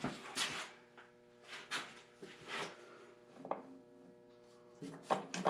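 Metal parts of a Farmall M's belt pulley attachment being worked by hand while the newly fitted unit is tried for engagement. Scattered scrapes and rubs, a single short clank about three and a half seconds in, then a clatter of metal near the end.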